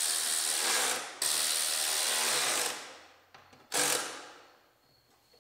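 Cordless power driver running in the fog light's mounting fasteners: two steady runs back to back, then one short burst about four seconds in.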